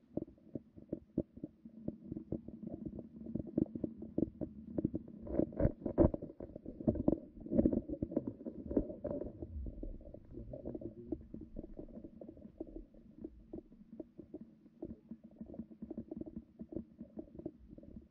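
Muffled, irregular low knocking and rumbling, heard through an underwater camera below the ice. The knocks come thickest and loudest through the middle few seconds.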